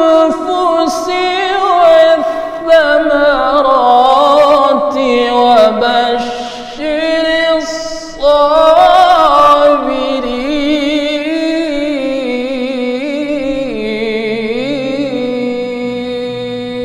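A man reciting the Quran in melodic tilawah style into a microphone, with long held notes ornamented by wavering melismatic runs. There are short breaks about seven and eight seconds in, and the voice is softer over the second half.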